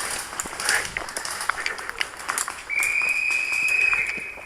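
Scattered clicks and taps, then near the end one long, steady, high whistle blast lasting almost two seconds, taken for the signal that the airsoft game is over.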